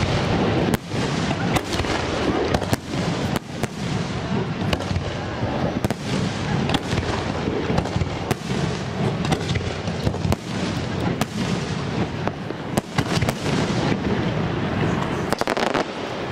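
Aerial fireworks display: a dense, irregular string of bangs from shells bursting overhead, often several a second, over a continuous din.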